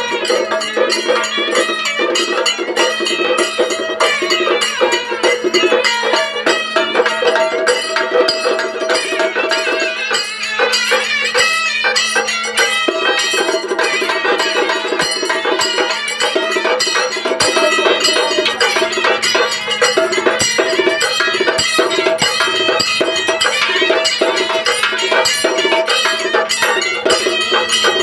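Traditional folk music with fast, even percussion strokes over a steady held note.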